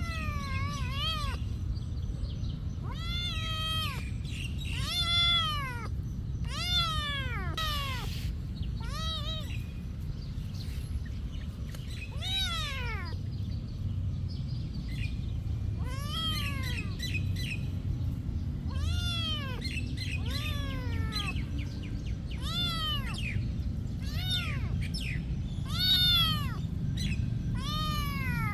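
Kitten meowing over and over, short high calls that rise and fall in pitch, one every second or two, over a steady low rumble.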